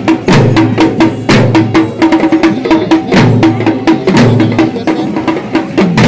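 Fast drum-led music: many sharp drum and wood-block strokes over a deep drum note that drops in pitch about once a second.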